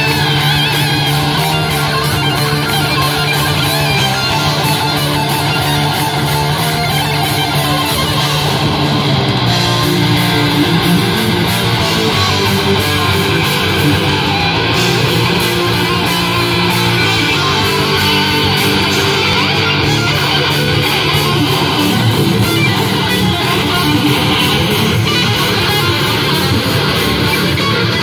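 Live metal band playing loud: distorted electric guitars, bass guitar and a drum kit in a dense, continuous wall of sound.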